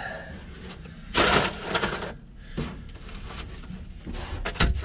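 Brittle old rubber intake hose being torn and scraped off an aluminum intake pipe, the material crunching and crumbling as it breaks away. A loud scrape comes about a second in, a softer one follows, and a few sharp clicks sound near the end.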